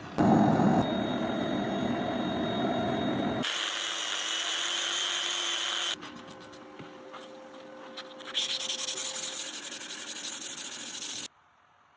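Power-tool grinding and sanding on the knife in a string of short clips, each cut off abruptly and the next starting at a different level. One quieter stretch in the middle has lighter, scratchy strokes. The sound stops abruptly near the end.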